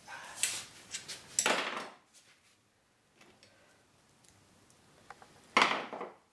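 Handling noise at a truck's aluminium wheel: plastic bag rustling and tool clatter in the first two seconds, then one sharp knock of a tool against the wheel at the valve-stem hole about five and a half seconds in, as the broken valve-stem base is worked loose.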